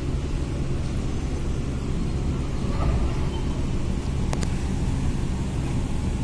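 Steady low diesel engine rumble from the moored car ferry, with one sharp click about four seconds in.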